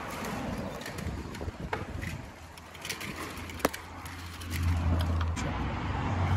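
Phone handling noise: scrapes and a few sharp clicks as the phone is worked through a narrow gap between boards, with a low rumble that swells from about four and a half seconds in.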